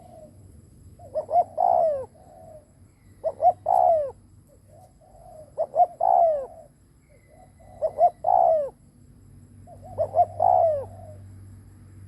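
Spotted dove cooing: a short phrase of two quick notes and a longer falling note, repeated about every two seconds, five times. This is the soft 'gù' coo of a decoy dove.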